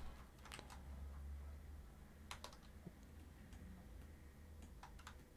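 Faint computer keyboard and mouse clicks, a few sharp taps in small irregular groups, over a low steady hum.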